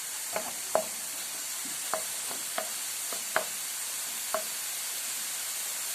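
Food frying in oil in a pan with a steady sizzle, as it is stirred, with about six sharp knocks of the utensil against the pan.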